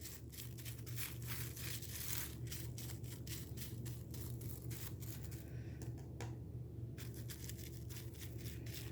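Paintbrush brushing a watered-down white glue mixture onto plastic wrap stretched over a bowl: quick, irregular scratchy strokes with light crinkling of the plastic, over a steady low hum.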